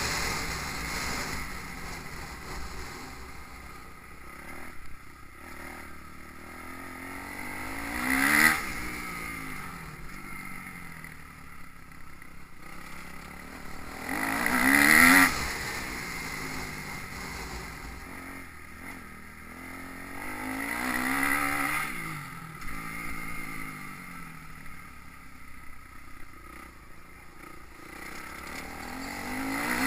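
Motocross bikes passing one after another, each engine swelling up and then falling away as it goes by, about four times, the loudest near the middle.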